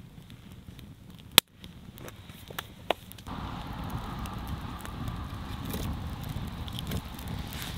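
Wood campfire crackling and popping as split logs burn, with a sharp crack about a second and a half in; a steady low rush comes in about three seconds in.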